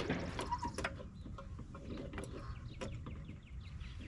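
Floor jack being pumped slowly to raise the suspension, giving a string of sharp mechanical clicks at an uneven pace.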